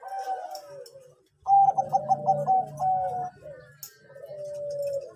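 A Bangkok-type zebra dove (perkutut) cooing: runs of quick, clipped coo notes. A short pause comes about a second in, and the song ends on a longer held note that cuts off near the end.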